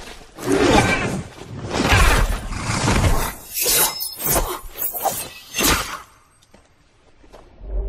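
A rapid series of crashes and impacts with a breaking, shattering quality. It dies down after about six seconds, with one more hit near the end.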